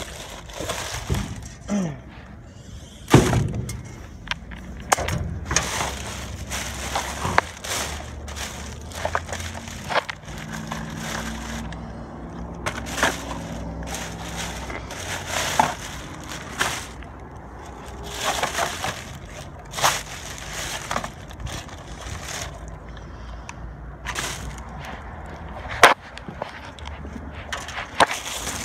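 Rummaging through a dumpster: black plastic trash bags crinkling and rustling, with many sharp knocks and clunks as boxes and debris are shifted. A low steady hum runs underneath through part of the middle.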